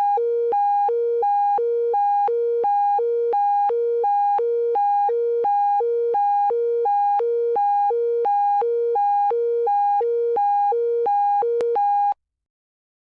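Electronic emergency-alert attention tone: two steady tones, a lower and a higher, switching back and forth about three times a second, then cutting off near the end.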